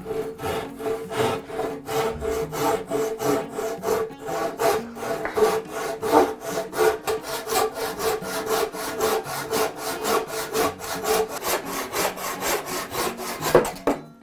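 Hand saw cutting through a wooden bar in quick, even strokes, about four a second, with the blade ringing faintly. The sawing stops shortly before the end.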